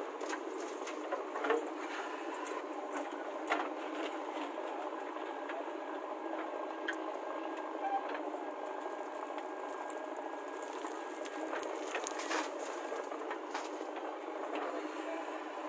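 Diesel engine of a JCB 3DX backhoe loader running steadily while it digs earth, heard thin and rattly, with a few sharp knocks from the bucket and arm.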